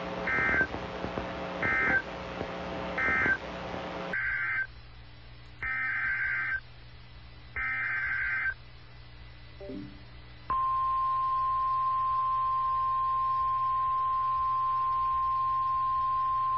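Emergency Alert System SAME data bursts: three short buzzy end-of-message bursts, then, after a cut, three longer header bursts. About ten and a half seconds in, the steady NOAA Weather Radio 1050 Hz warning alarm tone begins and holds.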